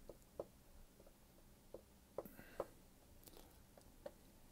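Near silence broken by faint, irregular little taps and ticks of a stylus writing by hand on a pen-display tablet screen.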